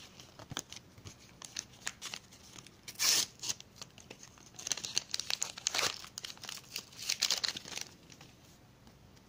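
A sticker packet's wrapper being torn open and crinkled by hand: scattered crackles, one loud tear about three seconds in, then a stretch of dense crinkling.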